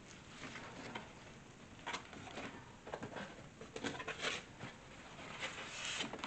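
Cardboard box and packing being handled: scattered short rustles and scrapes, with a cluster about four seconds in and another near the end.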